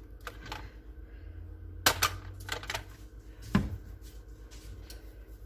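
Scattered clicks and knocks of kitchen containers being handled and set down on a stone countertop, with a sharp click about two seconds in and a heavier knock about three and a half seconds in, over a low steady hum.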